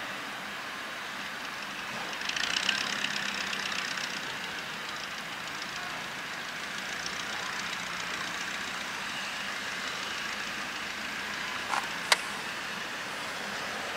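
Coal being loaded from a bulk bag into a steam locomotive's tender, over a steady hiss and engine hum. About two seconds in, coal rattles down into the tender for a second or two, and a single sharp click comes near the end.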